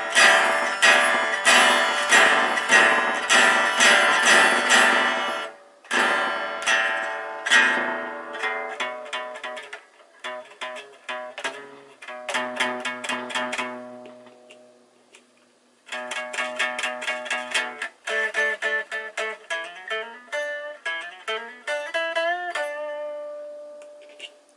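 Greco Les Paul electric guitar being played: strummed chords for about five seconds, then picked single notes and arpeggios, with a short pause about fifteen seconds in and string bends near the end.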